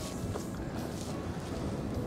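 Strong wind blowing, a steady rushing hiss without gusts or breaks, in a gale of over 50 knots.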